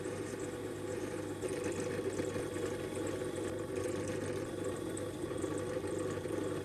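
Motor-driven wire wheel spinning steadily, a motor hum with a scratchy brushing noise as small steel parts are cleaned on it.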